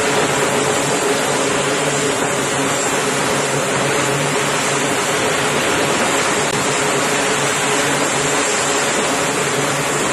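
Twin turboprop engines and propellers of a C-2A Greyhound running steadily at taxi power: a loud, even rush with a steady low hum.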